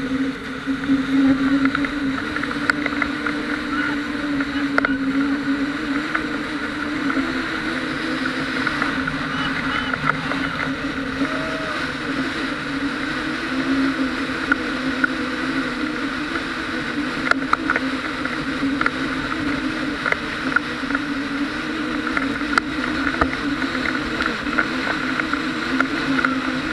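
Motorboat engine running steadily while towing a banana boat, a drone that wavers slightly in pitch, with water rushing and splashing against the inflatable hull and small ticks of spray.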